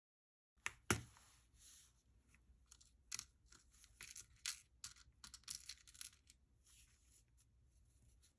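Small clear plastic compartment case of nail rhinestones and parts being handled and opened: a string of short plastic clicks and light rattles between about one and six seconds in.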